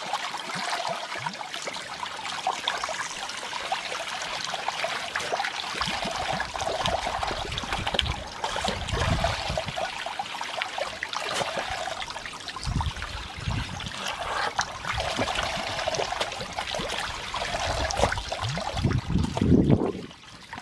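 Water pouring and splashing steadily from a hose that a Shiba Inu is playing in, with irregular low rumbles mixed in.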